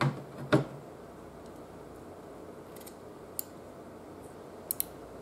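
Sharp metallic clicks as a strong small ring magnet salvaged from a CD-ROM drive snaps against the steel shaft of a screwdriver. Two loud clicks come in the first second, then a few faint ticks later on.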